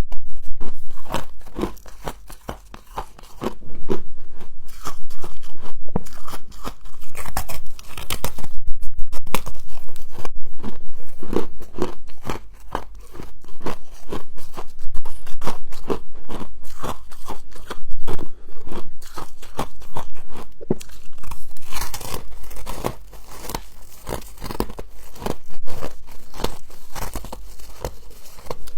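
Close-miked crunching and chewing of frost: many sharp, crackling crunches in quick runs, with short pauses between bites.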